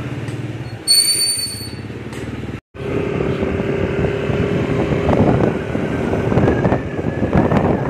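Yamaha motor scooter engine running steadily, with a short high electronic beep about a second in. After a cut a little over two seconds in, the engine sound comes back louder and noisier, with a faint steady hum under it.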